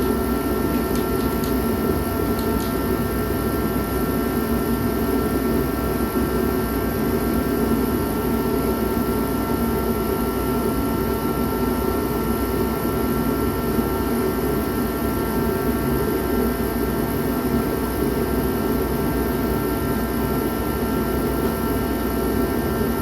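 Shop heater running: a loud, steady blowing noise with a low hum and several held tones, unchanging throughout.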